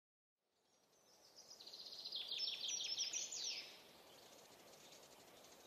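Faint outdoor nature ambience fading in from silence: a steady hiss, with a bird singing a rapid trill of short descending chirps from about one and a half to three and a half seconds in.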